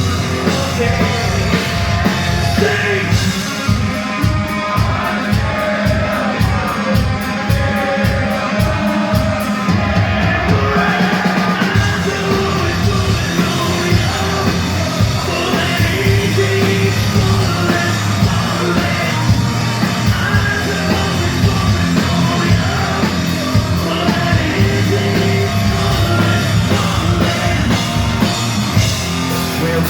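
Live metal band playing, with sung and shouted vocals over loud distorted music. For about the first ten seconds a fast, evenly spaced run of low drum hits drives the song.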